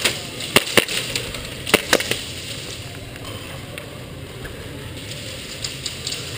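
Scattered sharp snaps of airsoft fire over a steady background hiss: two about half a second to a second in, and two more near two seconds in.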